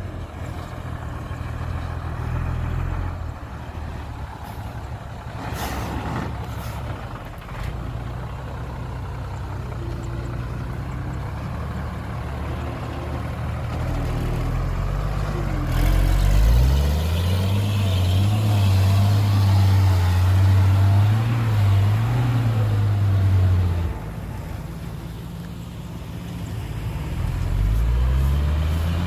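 Large diesel engine of heavy machinery running low, then revving up sharply about halfway through, held at high revs for several seconds and dropping back, before revving up again near the end.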